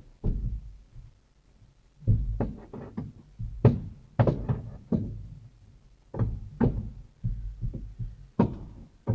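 Irregular knocks and thumps on a truck cab's body and door, heard from inside the cab as truck-wash workers scrub the outside. A quiet second near the start, then clusters of several knocks in a row.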